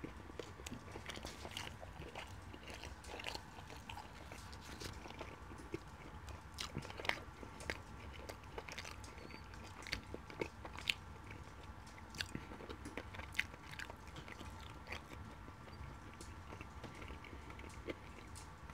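Close-miked chewing of curry chicken and flatbread: soft, scattered wet mouth clicks and smacks throughout, over a faint steady hum.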